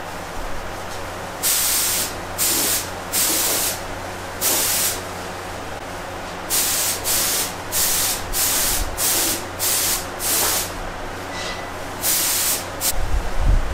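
Air-fed paint spray gun hissing in about a dozen short bursts as primer is sprayed, several in quick succession near the middle, over a steady low hum that stops near the end. The air compressor feeding the gun has just failed.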